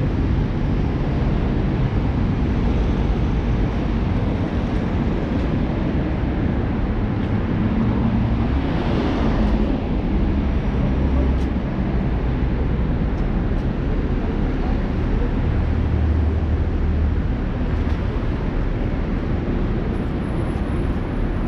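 City street noise: a steady low traffic rumble, with a hiss that swells and fades about nine seconds in, as a vehicle goes by.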